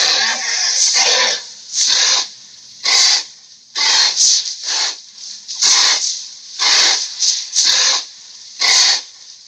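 Giant ape sound effect made of breathy hisses: one long hiss that stops about a second in, then a string of short huffs about once a second, some coming in quick pairs.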